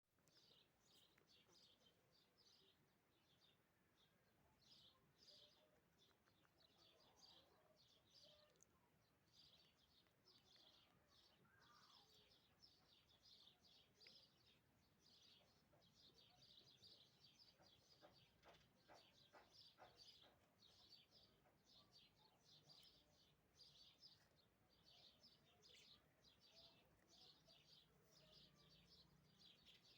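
Faint chirping of small birds, a rapid run of short, high chirps, two or three a second, going on steadily.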